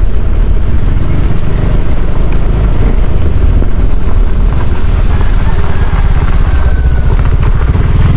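Zontes motorcycle's engine running steadily while riding, with wind noise on the microphone.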